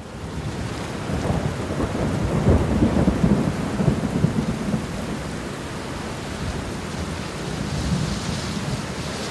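Steady rain hiss with a long rolling rumble of thunder. The sound fades in over the first second, and the rumble is heaviest a few seconds in before easing back under the rain.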